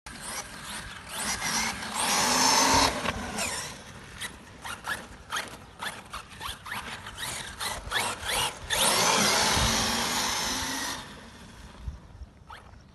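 RC truggy's motor whining at full speed, swelling loud twice as the car passes close, with short crackles and rattles from the tyres on sand and gravel in between.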